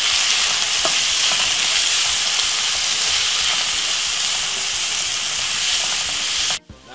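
Diced sweet peppers, onion and tomato sizzling steadily in hot oil in a non-stick wok while being stirred with a slotted spatula. The sizzle cuts off suddenly near the end.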